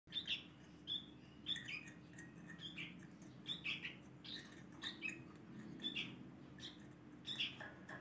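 A fledgling sooty-headed bulbul calling over and over with short, high, downward-slurred chirps, roughly one or two a second. These are begging calls while it is being hand-fed.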